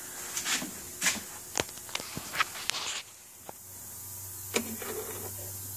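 Handling noises from a homemade Tesla-style disc turbine being moved about and set in a bench vise: a scatter of light clicks and knocks. A low steady hum comes in near the end.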